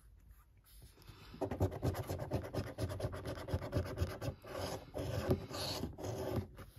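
A coin scratching the coating off a paper scratchcard: rapid back-and-forth strokes that start about a second and a half in and stop shortly before the end.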